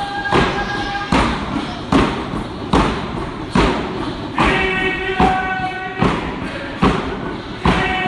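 Northwest Coast frame drums beaten in a steady beat, about one stroke every 0.8 seconds, accompanying a dance song. Voices hold sung notes over the beat at the start and again from about halfway through.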